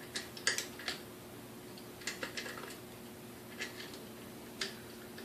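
Scattered small clicks and taps of metal parts and a hand tool as the broken speed-control knob and its tension clip are worked off a KitchenAid 3C stand mixer, over a faint steady hum.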